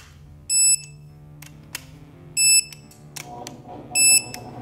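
Digital torque wrench beeping three times, each a short high-pitched beep, the beeps about one and a half to two seconds apart: the wrench signalling that each connecting-rod cap bolt has reached the set 15 ft-lb. Light clicks come between the beeps.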